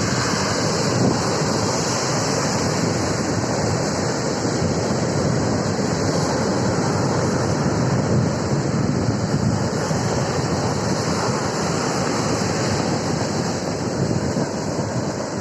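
Storm surf breaking on the shore, with strong wind buffeting the microphone in a steady, unbroken rush.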